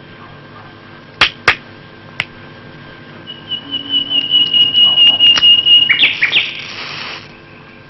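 Two sharp clicks about a quarter second apart and a fainter third click, then a long steady high whistle for nearly three seconds, ending in about a second of hiss as a match is struck and flares to light a cigarette.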